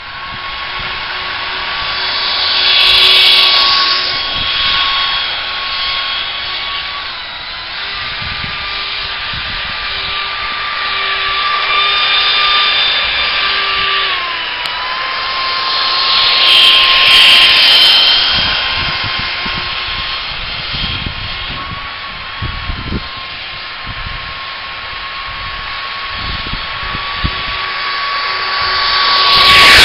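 Ducted fan driven by a 500 W brushless electric motor on a radio-controlled car, a steady high whine over a rush of air. It swells and fades several times as the car drives about, with brief dips in pitch twice.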